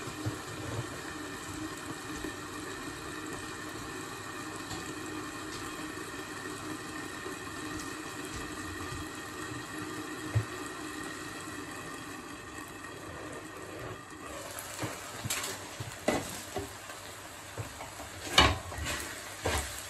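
Rice simmering in liquid in a covered frying pan, with a steady bubbling hiss. About fourteen seconds in this gives way to a wooden spoon stirring the rice in the pan, with a few sharp knocks; the loudest comes near the end.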